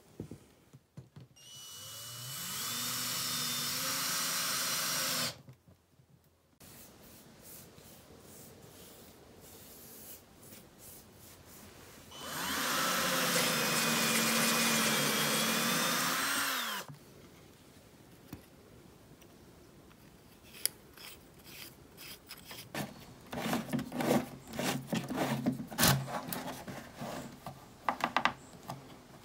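Cordless drill running in two bursts of about four seconds each, spinning up and then holding speed; the second bores through a plastic canister cap with a step drill bit. Later comes a string of clicks and plastic rubbing as a plastic pipe fitting is screwed into the cap.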